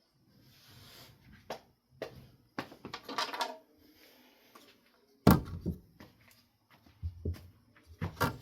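Objects being handled on a work surface: scattered clicks, knocks and brief rubbing, with one loud thump about five seconds in.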